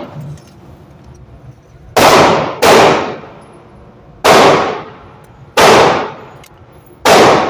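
Five gunshots fired at an uneven pace: two close together about two seconds in, then single shots a second or more apart, each with a short ringing tail.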